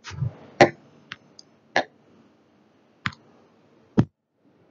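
About six short, sharp clicks at uneven intervals, the loudest about half a second in, with a low thump at the very start.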